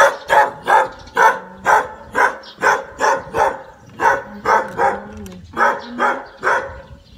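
A dog barking repeatedly at about two barks a second, stopping shortly before the end.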